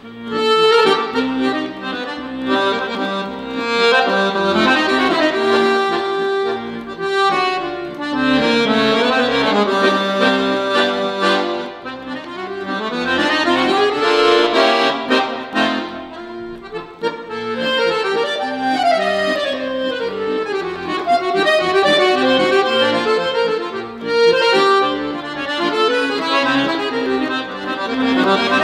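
Piano accordion played solo, with fast runs sweeping up and down over a steady bass and chords.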